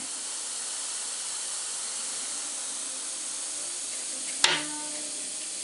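A steady hiss, with one sharp click about four and a half seconds in followed by a brief faint hum.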